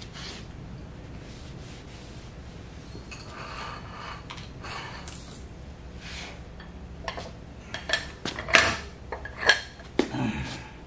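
Metal lathe spindle parts clinking and knocking on a steel workbench as they are handled: a scatter of sharp clinks starting about seven seconds in, with two loud knocks about a second apart near the end, over a low steady hum.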